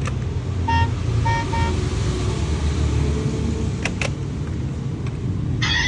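Steady low rumble, like road traffic, with three short high-pitched horn toots in the first two seconds and two sharp clicks about four seconds in.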